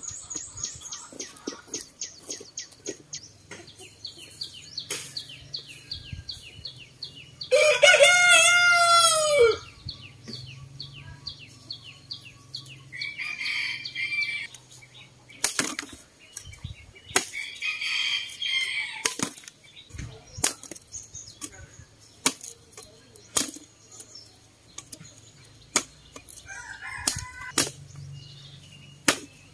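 A rooster crows once, loudly, about eight seconds in, over high rapidly repeating trills in the background and scattered sharp knocks. Near the end, a machete chops cassava stems.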